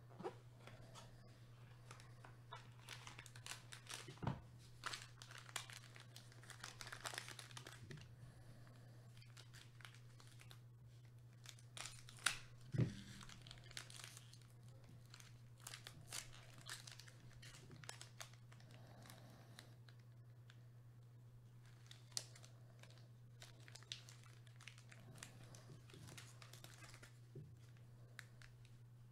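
Foil wrapper of a trading-card pack being torn open and crinkled by gloved hands, in short crackling spurts that are loudest about twelve seconds in. A steady low hum runs underneath.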